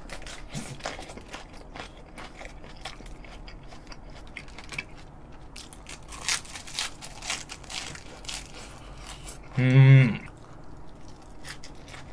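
A mouthful of raw napa cabbage leaf wrapped around grilled cuttlefish chewed with many short crisp crunches, and a short low hummed 'mm' about ten seconds in.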